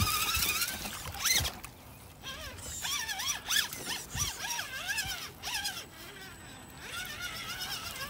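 Redcat Everest 10 RC rock crawler's electric motor and gears whining, the pitch swinging up and down in short swells as the throttle is worked, while it crawls through mud.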